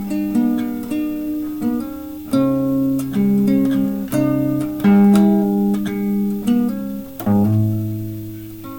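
Instrumental music on a plucked string instrument: picked notes and chords ringing out, with a new chord struck every second or so.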